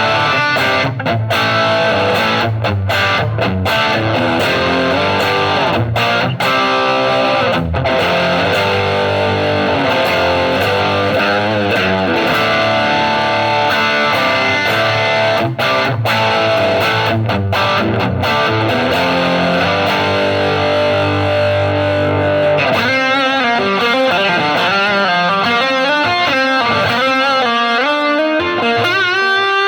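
Distorted electric guitar played through a Hotone Ampero II multi-effects pedalboard's native amp model and cabinet IR: rhythm chords with short stops between them, then, about 23 s in, a single-note lead with bends and vibrato.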